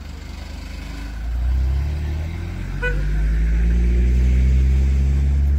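Engines of off-road 4x4s (a Toyota Land Cruiser 70-series and a Land Rover Defender) driving past close by. The deep rumble climbs slowly in pitch as they pull away, and a short horn beep sounds about three seconds in.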